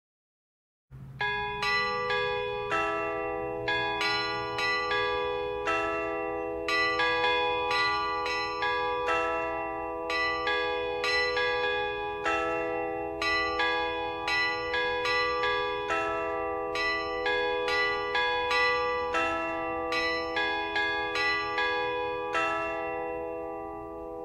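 Church bells ringing: a long run of strikes at several pitches, about one to two a second, their hums overlapping. The ringing starts about a second in, the last strike comes near the end, and the hum dies away.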